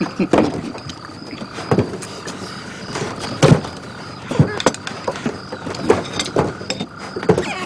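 A man and a tame otter tussling on a woven straw mat: irregular thumps and scuffs, with short bending squeaks and grunts, over a steady high chirring of night insects.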